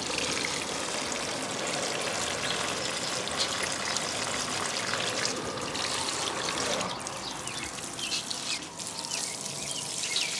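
Water pouring from a plastic watering can's rose spout onto potted plants, a steady trickle and splash. The flow thins about seven seconds in, and a few short high chirps come near the end.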